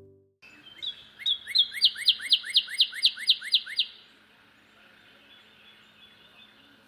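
Northern cardinal singing a run of about a dozen clear upslurred whistles, about four a second, that stops near the middle.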